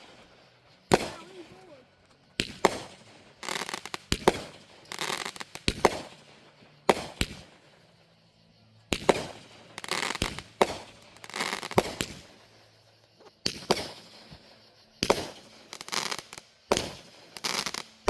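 Fireworks going off: a series of sharp bangs, a dozen or more at uneven intervals, each trailing off in a crackle, with a short lull about halfway through.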